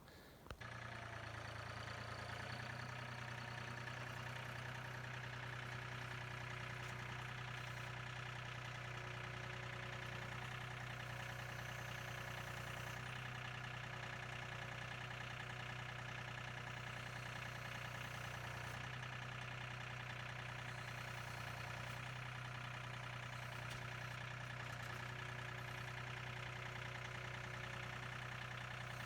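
Tractor engine running at a steady, even speed with a low hum, without revving up or down.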